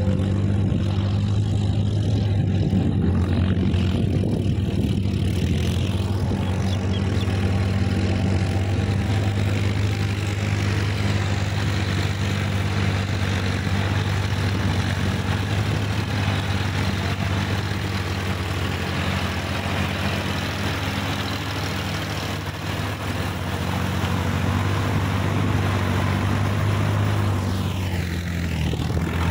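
Sonalika DI-50 RX diesel tractor engine running steadily with a low, even hum while it works the field.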